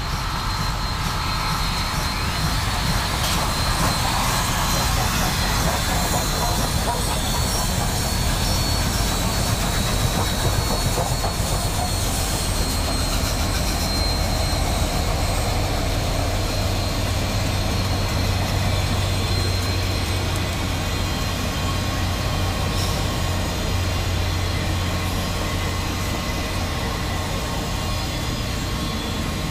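Union Pacific Big Boy 4014, a 4-8-8-4 articulated steam locomotive, working past at close range. It is followed by its tenders, a trailing diesel locomotive whose low steady drone comes in about halfway, and a string of passenger cars rolling by on the rails.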